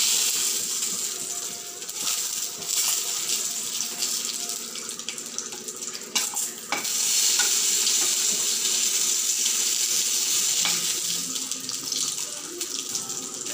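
Momos shallow-frying in a little oil in a pan, a steady high sizzle, with a few knocks of a spatula against the pan about six to seven seconds in, after which the sizzle is louder.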